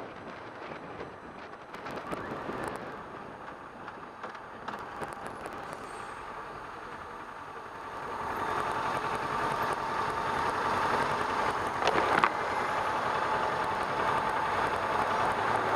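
Kawasaki Ninja 650 parallel-twin motorcycle being ridden, its engine running under road and wind noise; the sound grows louder about halfway through, with a brief knock near the end.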